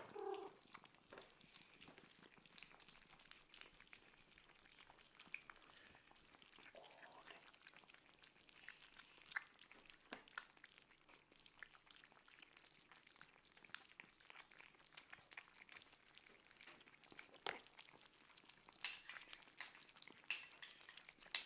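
Faint, quick clicking and smacking of kittens and cats eating wet food from bowls, with the tail of a kitten's meow right at the start and a few sharper clicks near the end.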